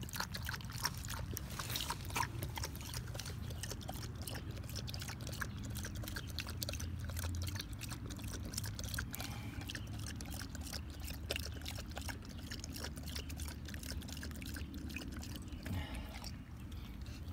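German Shepherd lapping water from a collapsible plastic bowl, a long run of quick wet laps over a low steady rumble.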